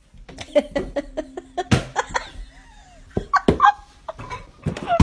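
A pet's quick run of short, sharp calls in clusters.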